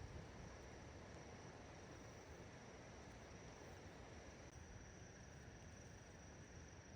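Near silence: faint background hiss with a thin, steady high-pitched tone.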